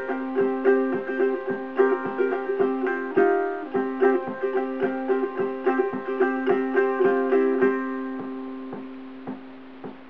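Covered Bridge tenor ukulele with a redwood top, myrtle back and sides and Worth Clear strings, fingerpicked in a bluegrass tune: a quick run of plucked melody notes over ringing open strings. About eight seconds in the picking stops and the last notes ring out and fade, with a few soft plucks near the end.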